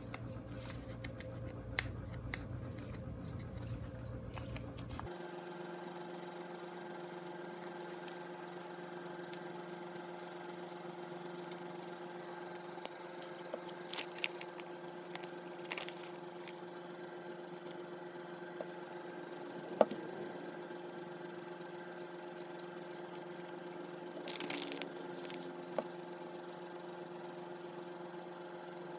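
Scattered soft clicks and crinkles of vinyl decal skins being peeled off their backing sheet and pressed onto a drone battery, over a steady low hum.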